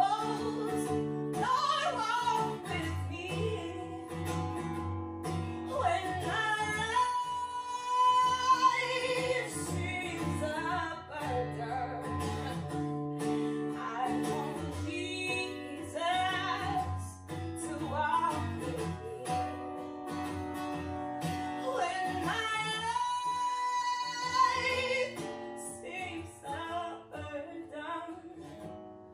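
Music: a voice singing over a plucked acoustic guitar, the music fading down near the end.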